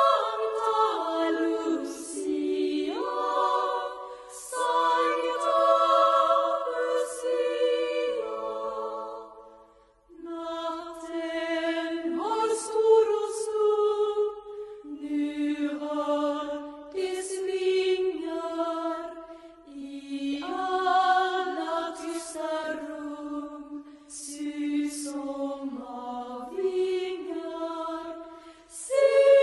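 Girls' choir singing a Lucia song in long, sustained phrases, breaking off briefly about ten seconds in before the next phrase.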